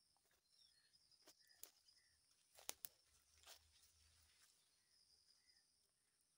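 Near silence with a few faint crackling footsteps on leaf litter and twigs, the loudest two close together about two and a half seconds in, over a faint steady high insect buzz.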